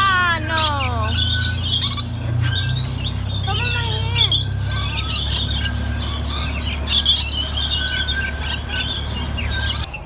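Rainbow lorikeets chattering, with rapid, shrill chirps and squawks throughout, over a steady low hum.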